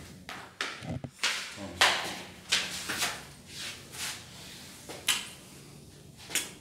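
Kissing: about ten short, wet lip smacks at irregular intervals, with brief gaps between them.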